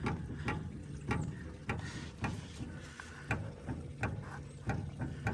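Socket ratchet being worked on a large bolt, its pawl clicking in short bursts about twice a second, over a faint steady low hum.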